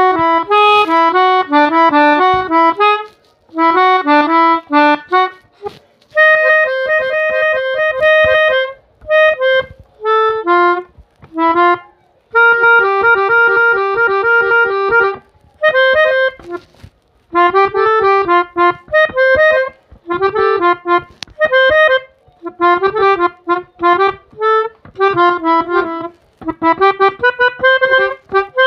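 A pianika (melodica) played by blowing through its mouthpiece tube, giving a reedy melody in quick runs of notes with some held notes, in phrases broken by short pauses.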